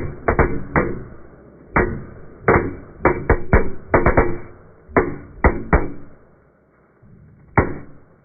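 A series of sharp knocks at irregular spacing, some single and some in quick runs of two or three, with one last knock near the end.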